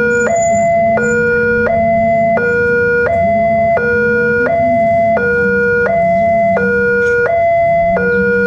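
Railroad level-crossing warning alarm sounding an electronic two-tone signal that alternates high and low about once a second. It is the warning that a train is approaching the crossing.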